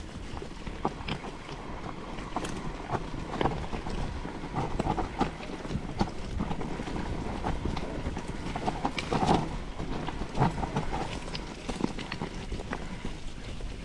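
Mountain bike rolling over rough, stony trail: a steady rumble with irregular knocks and rattles as the wheels hit stones, loudest about nine to ten seconds in.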